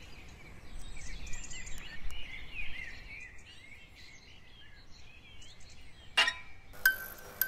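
Several birds singing together, a busy stream of short twittering chirps over a low outdoor hum. About six seconds in there is one short sharp sound, and music with a steady tone and ticking starts just before the end.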